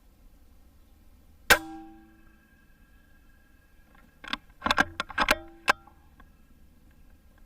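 A single sharp shot from an Altaros M24 PCP airgun about a second and a half in, with a brief metallic ring, then about three seconds later a quick run of sharp metallic clicks and clacks.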